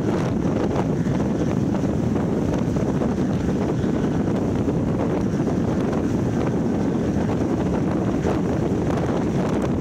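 Heavy wind buffeting the microphone of an action camera on an offshore powerboat running at speed, over a steady low rumble from the boat on the water.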